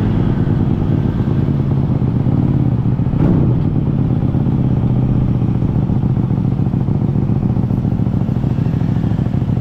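QJMotor SRV400 V-twin motorcycle engine running under way, heard from the rider's seat. It is steady throughout, with a brief rise and fall in pitch about three seconds in.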